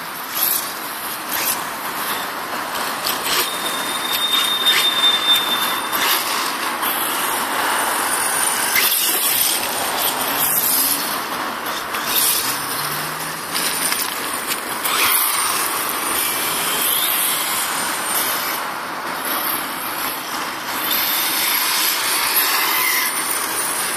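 Electric radio-controlled monster truck driving, its motor and gear drive whining with a squeal, over a loud rushing hiss. A brief steady high tone sounds a few seconds in.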